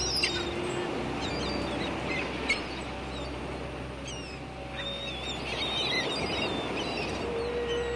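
A flock of birds calling over a dense steady background, with many short high chirps and squawks throughout and two sharp clicks early on. Near the end a wavering sustained musical tone comes back in.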